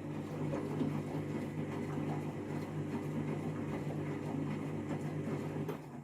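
Candy washing machine on its main wash with an empty drum: the motor turns the drum with a steady hum, and the sound drops away near the end as the drum stops.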